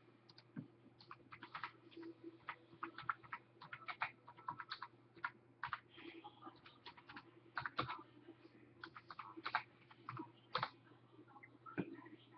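Faint, irregular keystrokes typed on a computer keyboard, over a faint steady low hum.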